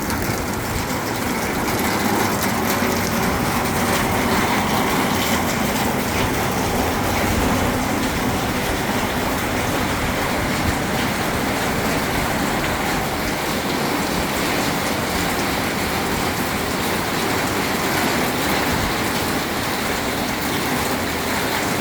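Steady heavy rain falling on a roof, an even hiss with no breaks.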